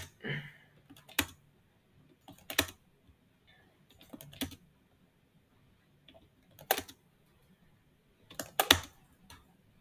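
Scattered computer keyboard and mouse clicks, single taps or short clusters about every one to two seconds.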